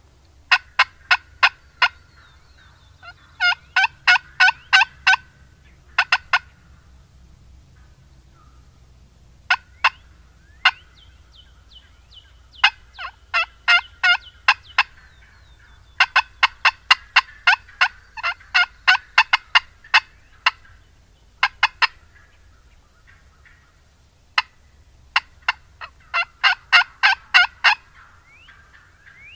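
Wild turkey hen cutting: fast runs of sharp, staccato clucks, about four to five a second, coming in bursts of a few seconds with short pauses between, the longest run near the middle.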